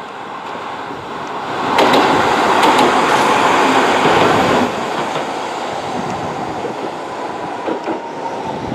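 Hankai Tramway 1001-class 'Sakai Tram', an articulated low-floor tram, passing close by on its rails. It is loudest for about three seconds, with a few sharp wheel clicks, then runs on more quietly with a faint steady high tone as it moves away.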